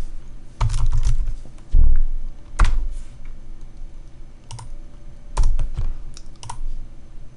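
Typing on a computer keyboard: separate, irregularly spaced keystrokes, some landing with a dull thump.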